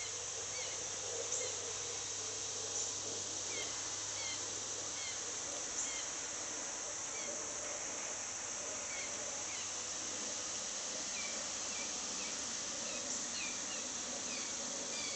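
Baby blue jays screeching to be fed, short calls repeating every second or so and coming more often near the end, over a steady high-pitched hiss.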